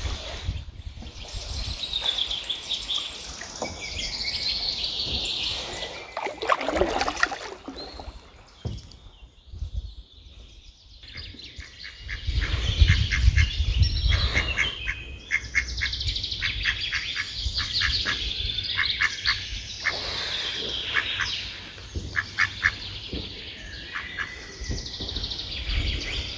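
Songbirds singing in the first half, then, from about halfway through, ducks calling in quick runs of short quacks, over a low rumble on the microphone.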